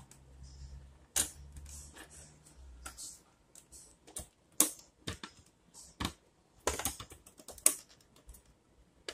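Hard plastic parts clicking and knocking as a motorcycle headlight cowl and its bracket are handled and held in place by hand: irregular taps, with a few sharper knocks.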